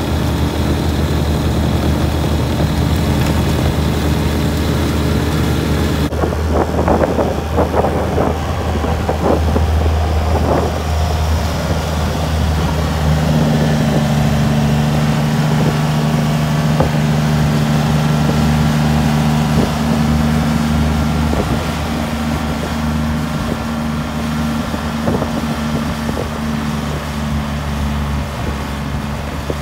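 John Deere 1585 compact tractor's diesel engine running under load, driving a Pronovost front-mounted snowblower through deep, wet snow; a steady engine hum with the blower running. Scattered knocks come about a quarter of the way in, and the engine hum grows stronger from about halfway.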